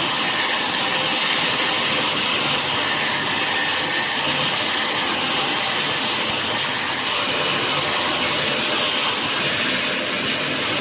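Steady, loud hiss of gas-shielded arc welding from a fillet welding tractor running along a joint, with a faint irregular crackle under it.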